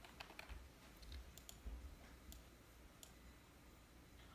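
Faint, irregular clicks of a computer mouse being clicked while navigating menus and windows, about half a dozen scattered clicks.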